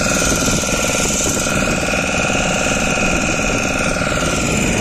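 A motor launch's engine running steadily with a fast, even beat, heard from on board the moving boat.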